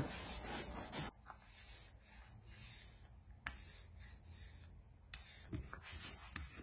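A cloth rag rubbing briskly over a jet ski's textured deck, wiping off degreasing prep spray. It cuts off abruptly about a second in, and then there are only faint handling sounds and a few light knocks.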